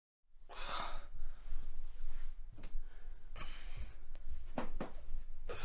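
A person breathing heavily, with sighs and short catching gasps, over a low steady hum. The sound begins abruptly out of dead silence.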